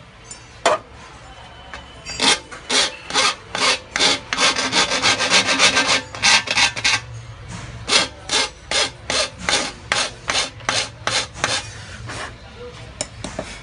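A hand file rasping along the edge of an aluminium channel strip in repeated back-and-forth strokes, about two a second, coming faster in the middle. One sharp knock comes just before the filing starts.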